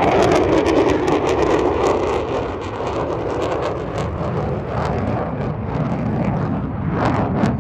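Jet noise of an F-35A Lightning II's Pratt & Whitney F135 engine as the fighter flies past: a deep, rushing rumble laced with crackle, loud at first and swelling again near the end.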